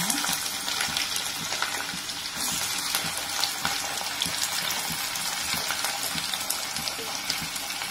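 Freshly added chopped onion frying in hot oil: a steady sizzling hiss peppered with many small crackles, loudest just at the start.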